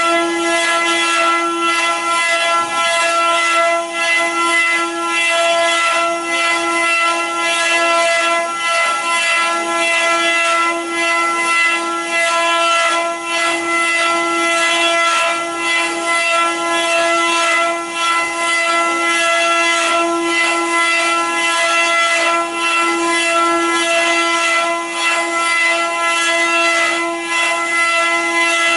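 Multi-head CNC wood carving machine running: its router spindles whine at one steady high pitch while the bits cut the wooden blanks, with uneven cutting noise over the whine.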